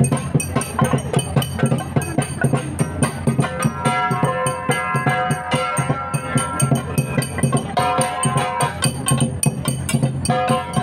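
Igorot gangsa: several flat gongs beaten with sticks in a fast, steady rhythm, their ringing tones sounding over the dense strikes.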